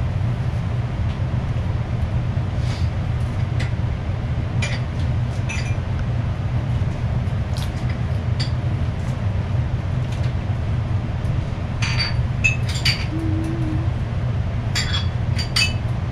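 Scattered light clinks of chopsticks against small porcelain dishes, with a cluster about twelve seconds in and another near the end, over a steady low hum.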